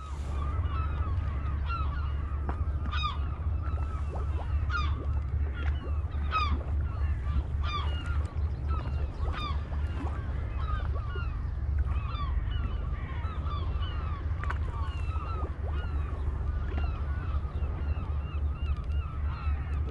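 Many birds calling at once, short honking calls overlapping continuously over a steady low rumble.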